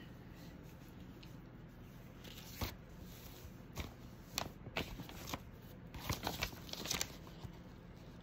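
Quiet handling noises: scattered soft rustles and light clicks as cross-stitched baby bibs are moved about and shown, over faint room hiss.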